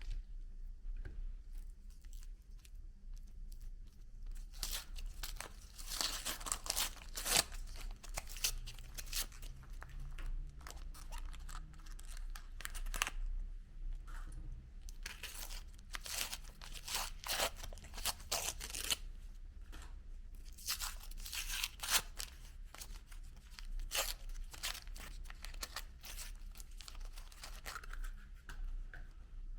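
Meat grinder crunching ice cream through its auger: dense, irregular crackling and crunching over a steady low hum, thickest for a few seconds after the start and again in the middle.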